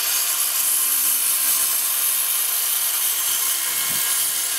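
DeWalt cordless circular saw cutting across a 2x4, running steadily through the cut: the motor's whine under the loud hiss of the blade in the wood.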